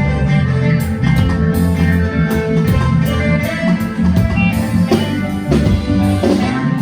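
Band playing an instrumental at a sound check: guitar lines over a heavy bass and drums with a steady beat.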